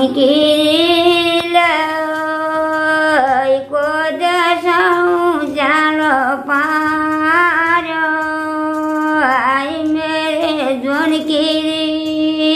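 An elderly woman singing a folk song solo and unaccompanied. She holds long notes with ornamented turns and takes brief breaks between phrases.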